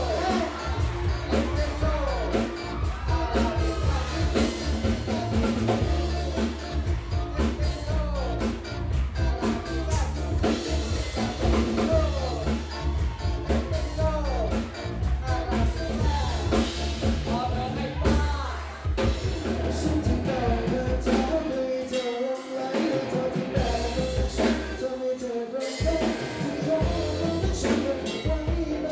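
Live band playing a song: men singing into microphones over electric guitar, bass guitar and a drum kit with a steady beat.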